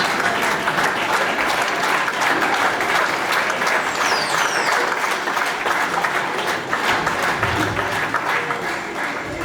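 Audience applauding, a dense steady patter of many hands clapping that eases a little near the end.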